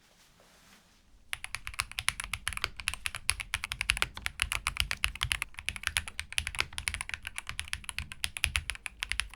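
Rapid typing on a NOOIR K1 mechanical keyboard fitted with GMK keycaps: a dense, unbroken stream of keystrokes that starts about a second in.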